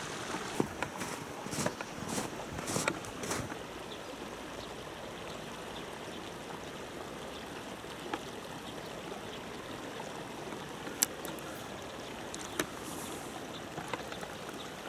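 River water running steadily over a shallow riffle, a continuous rushing hiss. A scatter of small clicks and knocks in the first few seconds, and two sharp single clicks later on.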